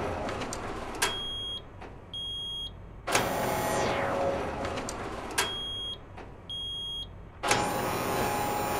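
Looping electronic sound design: a long falling whooshing sweep, then a sharp click and two short high beeps, the pattern coming round about every four and a half seconds.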